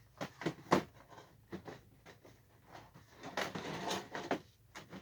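Toy packaging being handled: a few sharp knocks and taps in the first second, then rustling and scraping of boxes, loudest near the end.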